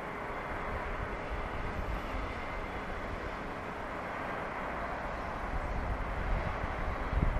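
Outdoor wind noise on the microphone: a steady hiss with a low, uneven rumble that gusts harder over the last couple of seconds.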